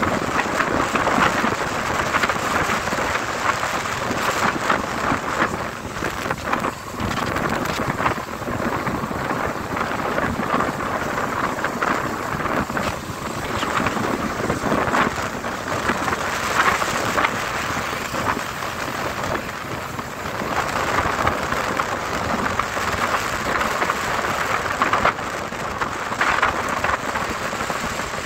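Steady rushing noise of rain and wind over the microphone on a moving motorbike riding through rain on a wet road, briefly easing about six seconds in.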